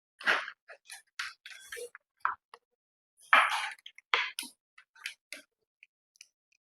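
Computer keyboards being handled and swapped: irregular clicks, clacks and short scraping rustles with pauses between them.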